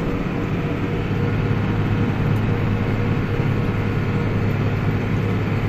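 Tractor engine running steadily under way on the road in a high gear, heard from inside the cab, an even drone with tyre and road noise.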